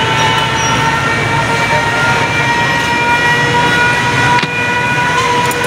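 Busy street ambience of traffic noise, with a steady high-pitched hum held throughout.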